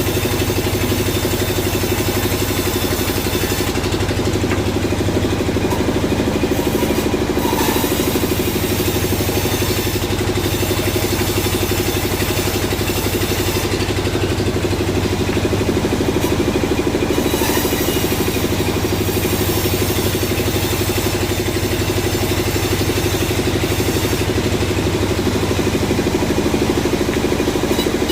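Sawmill machinery running steadily: an unbroken mechanical drone with an engine-like hum that holds level throughout.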